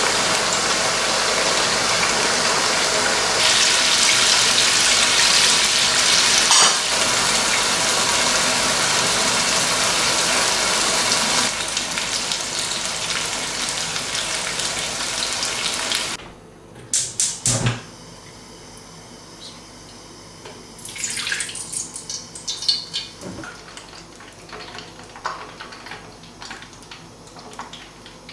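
Water running hard from a tap, with an even rushing sound, shut off abruptly about halfway through. A couple of knocks follow, then a few light clinks of dishes.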